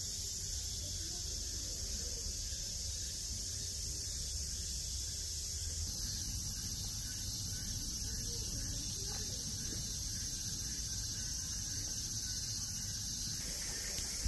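Steady, high-pitched chorus of cicadas, its tone changing about six seconds in and again near the end, over a low rumble.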